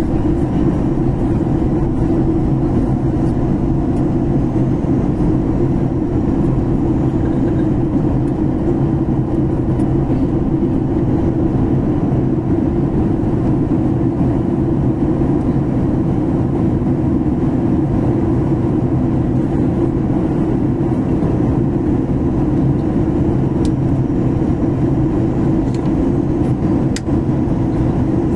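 Steady, low cabin drone of an airliner descending to land, heard from inside the cabin: engine noise and rushing air, even throughout.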